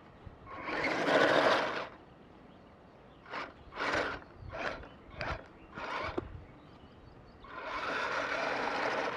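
Kyosho Blizzard SR radio-controlled tracked snow vehicle driving in spurts, its tracks making a rushing, churning noise. There is one run of about a second, then four short bursts, then a longer run near the end.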